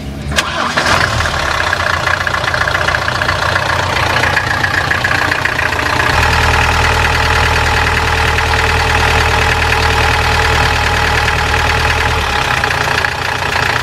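A Mercedes-Benz diesel motorhome engine starts with a sharp click about half a second in, then idles steadily. This is a test start after repairing a fuel-line leak that had let the engine lose diesel and draw in air. For about six seconds in the middle, a deeper low drone from the engine is heard more strongly.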